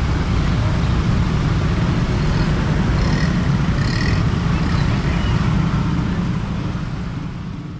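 Dense road traffic of motorbikes and cars crossing, engines and tyres making a steady rumble, with a couple of brief high chirps near the middle; the sound fades out near the end.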